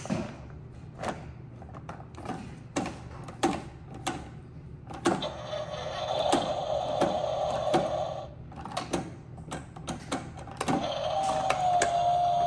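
Hand-operated plastic toy garbage truck's side-loader arm clicking and knocking as a toy bin is gripped, lifted and tipped into the hopper, with bins set down on concrete. A steadier mechanical whirr comes in twice, in the middle and again near the end, with a high steady whine in the later one.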